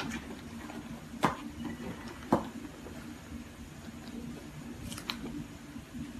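Two sharp knocks about a second apart over a steady low hum, with a fainter tick about five seconds in.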